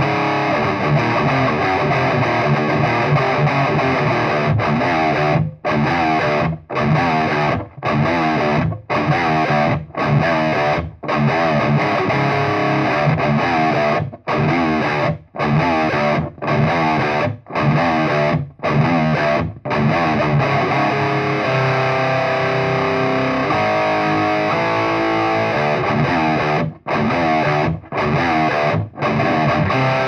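Heavily distorted electric guitar played through a Marshall 4x12 speaker cabinet: a chugging rock riff broken by short stops about once a second. In the second half it gives way to a few seconds of held single-note melody, then the stop-start riff returns near the end.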